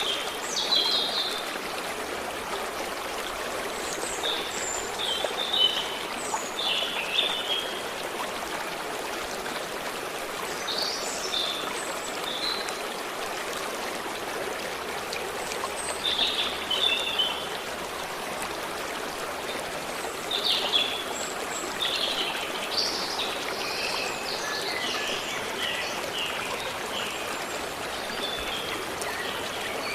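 A forest stream flowing steadily, with songbirds singing short, high chirping phrases every few seconds over it, most densely in the second half.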